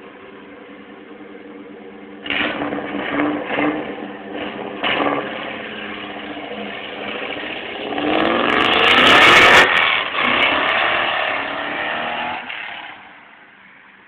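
Saleen Mustang race car's V8 idling, then revved in several sharp blips from about two seconds in, then accelerating hard with rising pitch, loudest around nine seconds, and fading away near the end.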